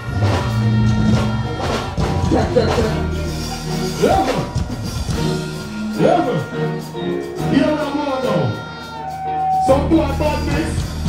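Live dancehall music played loud through a stage sound system, with a deejay's voice over the riddim.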